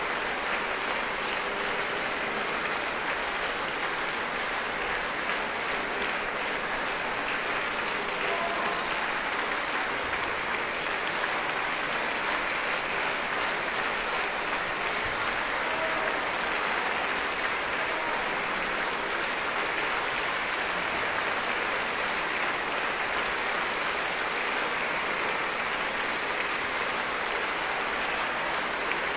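Concert audience applauding steadily, a long ovation filling the hall.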